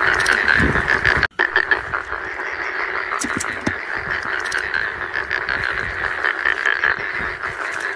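Dense chorus of frogs croaking continuously, a steady pulsing din, with low knocks of handling in the first second and a brief break just over a second in.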